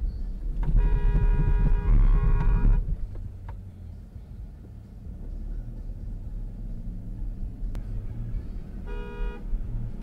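Car horn honking: one long blast of about two seconds with a second tone joining near its end, then a short toot near the end. A low road and engine rumble from inside a car runs under it.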